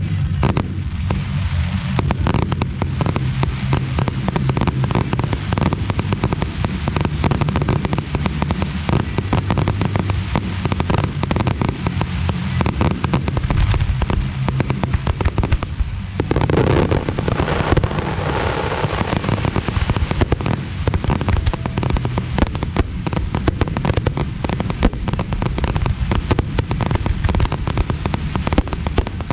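Aerial fireworks finale: a continuous, rapid barrage of shell bursts and booms. A little past halfway, a burst of dense crackling joins in.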